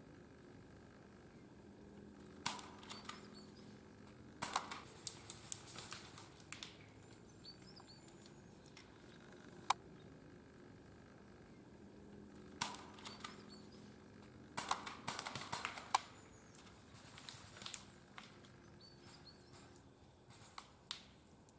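Scattered bursts of rustling and sharp clicks over a quiet outdoor background, with a few faint bird chirps.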